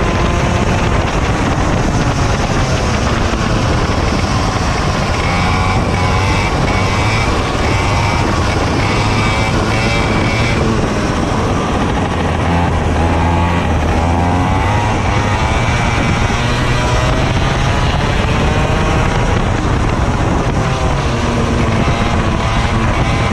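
Racing kart engine heard from the driver's seat at full race pace, its pitch repeatedly climbing on the straights and dropping as the driver slows for corners.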